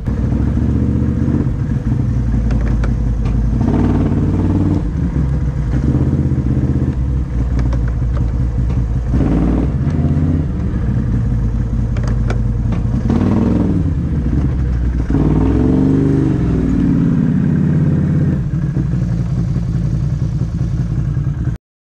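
Can-Am ATV engine running under way, its pitch rising and falling several times as the throttle is worked. The sound cuts off suddenly near the end.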